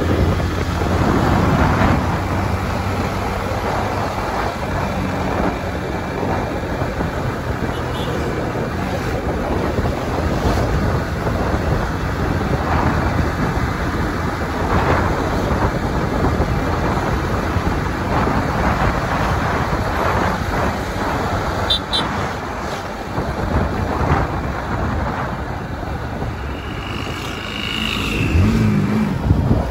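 Road traffic noise, with a vehicle engine running.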